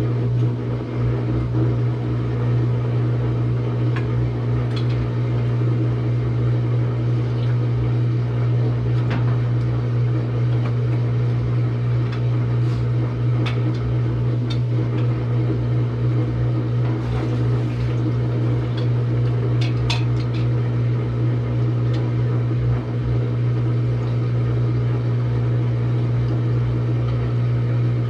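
Samsung washing machine running its spin cycle: a loud, steady motor-and-drum hum with a few faint clicks.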